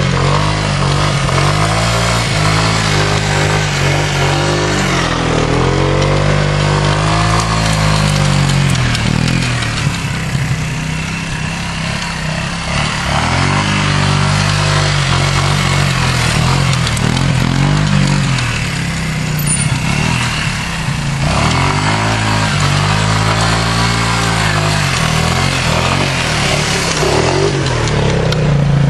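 An ATV engine running under way, its revs rising and falling several times as the rider works the throttle. A steady rushing hiss runs underneath it.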